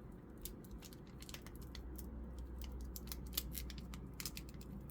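Faint, irregular clicks and rustles of a Pokémon trading card booster pack and its cards being handled by hand.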